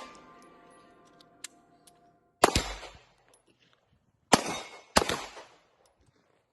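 Three rifle shots: one, then about two seconds later two more about half a second apart, each sharp crack followed by a short decaying echo.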